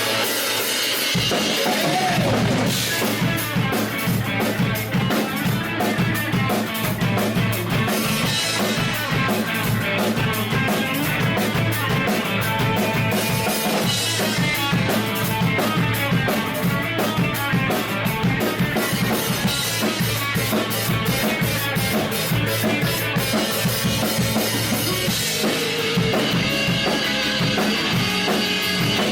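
A rock band playing live: guitars with a full drum kit of kick and snare, the drums and low end coming in about a second in and keeping a steady beat.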